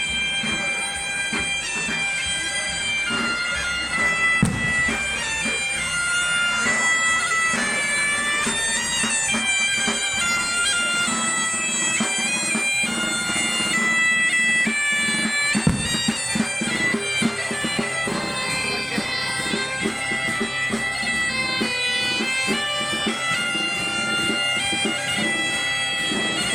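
Asturian bagpipe (gaita) playing a melody over its steady drone, with a couple of dull low thumps along the way.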